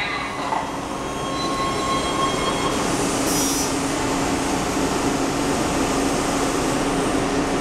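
Washington Metro Breda 3000-series subway cars rolling slowly into the platform and coming to a stop, with a steady running rumble and hum. There is a brief high squeal about three seconds in.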